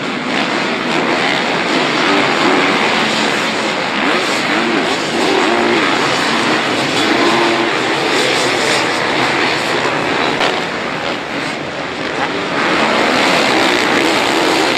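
Several motocross bike engines revving, their pitch rising and falling over a dense, continuous engine noise.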